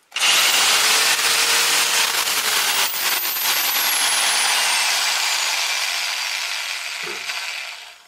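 Half-inch non-hammer electric drill with a half-inch carbide masonry bit grinding through concrete block. It starts suddenly, its pitch sinks steadily, and it fades and stops near the end as the bit breaks into the block's hollow core.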